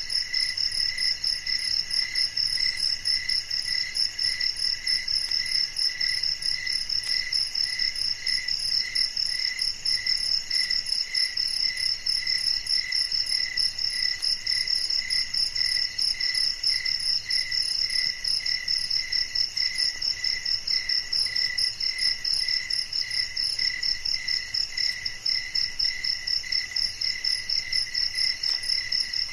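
Crickets chirping in a steady night chorus: two high tones pulsing rapidly and evenly without a break.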